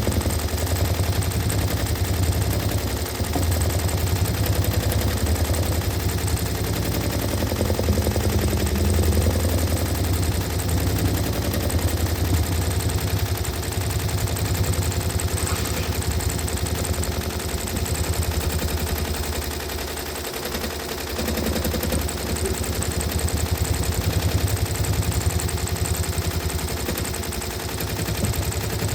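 Sewing machine running steadily, its needle stitching in a rapid, even clatter, quieter for a couple of seconds about twenty seconds in.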